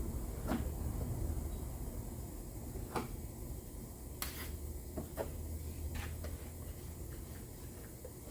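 A few scattered light clicks and knocks of tools being handled during body-filler work, with a brief hiss about four seconds in, over a steady low rumble.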